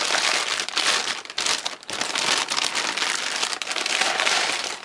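Clear plastic wrap crinkling and crackling as it is handled and pulled off a car stereo head unit, with a short lull about a second and a half in.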